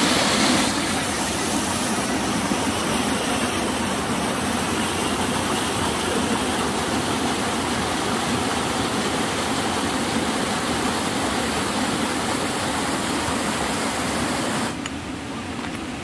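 Shallow stream water rushing and splashing over rocks, a loud, steady rush. It turns quieter about a second before the end.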